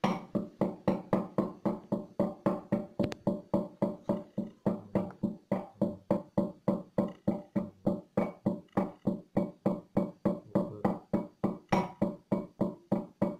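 Background music: a steady run of short, evenly spaced notes, about three a second.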